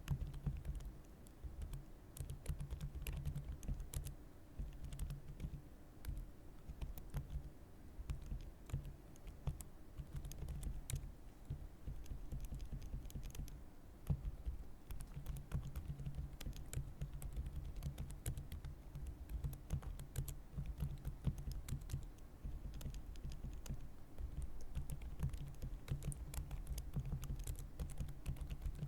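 Computer keyboard typing: a continuous run of quick, irregular keystrokes.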